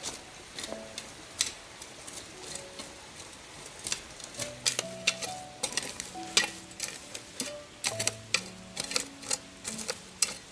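Irregular sharp clicks and light scrapes, coming thicker in the second half, over soft background music with held notes.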